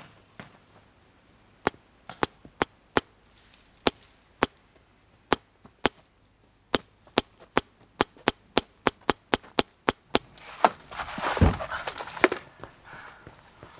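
Paintball gunfire: sharp single pops, scattered at first, then coming in quicker succession. About ten seconds in, a rushing noise swells with one heavy low thump.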